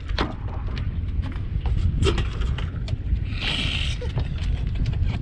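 Scattered knocks and clatter of fishing gear being handled in a small boat, over a steady low rumble. A short hiss comes about three and a half seconds in.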